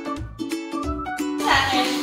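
Background music: a light plucked-string tune over a steady bass beat, with a brighter, fuller part coming in about one and a half seconds in.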